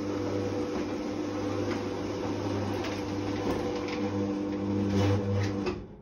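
Electric roller garage door motor running with a steady hum as the shutter rolls down to close. It stays powered briefly after the door is shut, then cuts off suddenly near the end as the relay drops the power.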